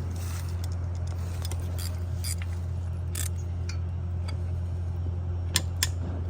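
A motor running with a steady low hum, with scattered light metallic clicks and taps and two sharper clicks near the end.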